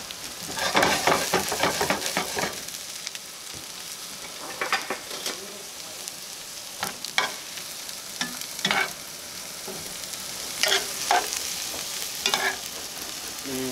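Chopped mushrooms, celery, onions and garlic sizzling steadily in hot oil in a cast-iron skillet. A metal spoon stirs and scrapes through the vegetables in several short bouts of clatter.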